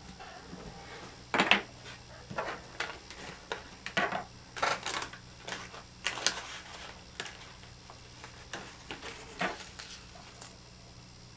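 Hard plastic RC axle carriers and small metal parts clicking and clattering as they are handled and set down on a tabletop, an irregular run of sharp knocks, the loudest about one and a half seconds in.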